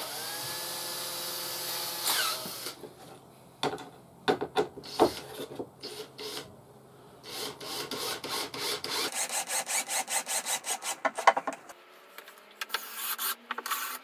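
Cordless drill-driver driving screws into a plywood box: the motor whines in runs, rising and falling in pitch, with clicks and knocks between runs and a quick run of clicks about eight seconds in.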